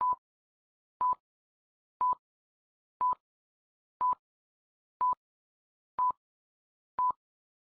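Film-leader countdown beeps: a short, clipped beep of one steady pitch once a second, eight times, one for each number counted down.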